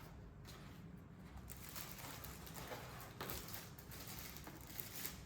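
Faint rustling and handling of packaging, a few soft scrapes and crinkles over low room hiss.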